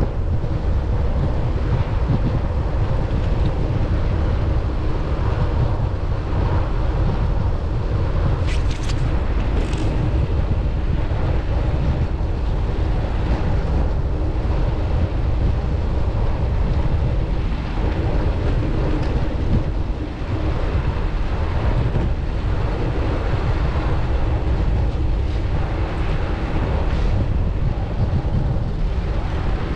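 Wind buffeting the microphone of a bicycle-mounted camera while riding, a steady low rumble mixed with street traffic. A couple of brief high squeaks come about nine seconds in.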